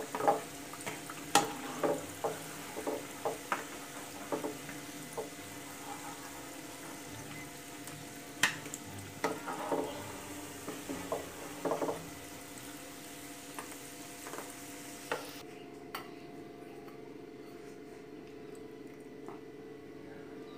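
A wooden slotted spatula knocks and scrapes against a kadhai as fried cabbage kofte are lifted out, over the hiss of the oil frying. About 15 seconds in the sizzle cuts off suddenly, leaving only a faint steady hum.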